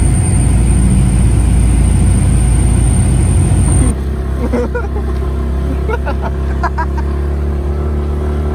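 A loud, steady low rumble like a running vehicle, with a faint steady high whine over it in the first half. About four seconds in it drops to a slightly quieter rumble, and faint short chirps sound over it.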